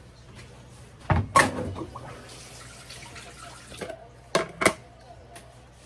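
Kitchen tap running briefly into the sink, framed by sharp knocks of kitchenware: two about a second in and two more near the end.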